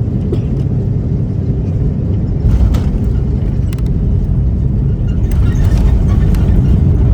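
Airbus A330-300 cabin noise during landing: a steady low rumble, a jolt about two and a half seconds in as the main wheels touch down, then a louder, rougher rumble that grows again near the end as the aircraft rolls out on the runway.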